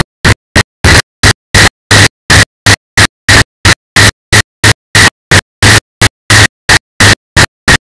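Harsh bursts of noise, about three a second, each cut off sharply into dead silence: a chopped, glitching audio track rather than a natural sound.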